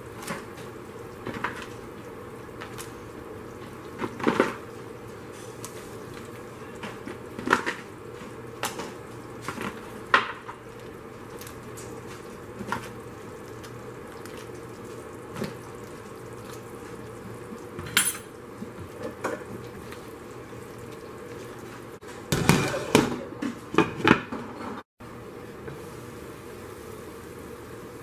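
Crab legs and a lobster tail knocking against the rim and sides of a large metal stockpot as they are put into the broth. The knocks are scattered and come every few seconds, over a steady background hiss, with a quick run of clattering near the end.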